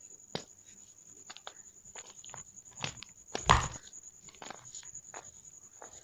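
Plain Jane gym chalk balls being crushed by hand: scattered crunches and crackles, with one louder, longer crunch about three and a half seconds in.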